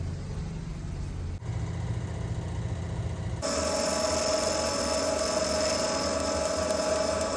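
Electric workshop machine tool running steadily across a few edited cuts: a low hum at first, then from about three and a half seconds in a louder, steady whine.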